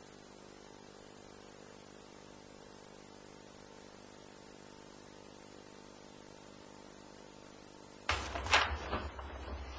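Faint, steady electrical hum made of several fixed pitches. About eight seconds in, it gives way abruptly to a louder low rumble with a couple of sharp knock-like sounds.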